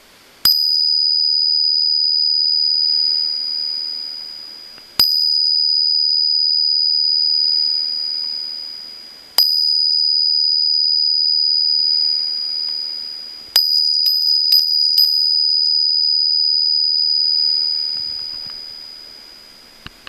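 A CatEye brass-domed bicycle bell rung by its striker. Three single dings come about four seconds apart, each a clear high ring left to fade. Then a quick run of about five dings rings out slowly.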